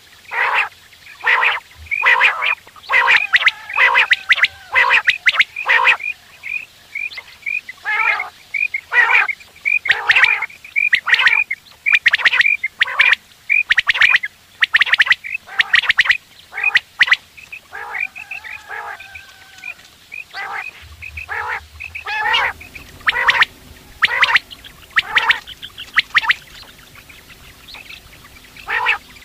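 Caged quail calling over and over: short, sharp, repeated calls, several a second, from more than one bird, with brief pauses between runs.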